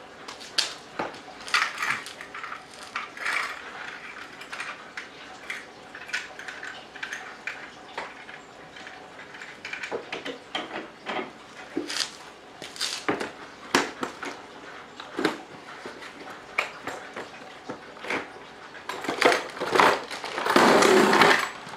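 Scattered metallic clinks and knocks as a car jack and hand tools are handled on a concrete floor, with a denser, louder rattle of tools in a plastic carrying case near the end.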